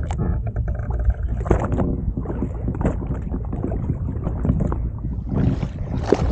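Ambient noise aboard a fishing boat at sea: a continuous low rumble of wind on the microphone and water, with scattered knocks and clatter on deck.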